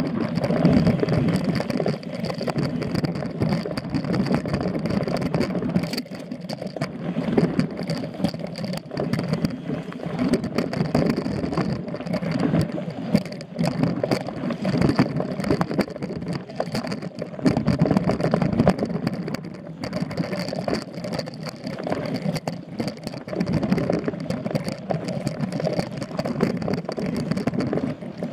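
Mountain bike ridden fast along a dirt forest singletrack: a rough, uneven rumble from the tyres and bike over the ground, with frequent rattles and clacks as it hits bumps.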